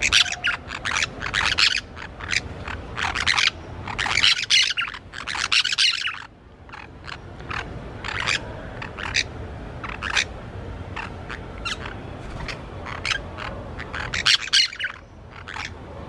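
Orange-chinned parakeets screeching: rapid runs of short, harsh, shrill calls, loudest in the first six seconds and again near the end, with single shorter calls in between.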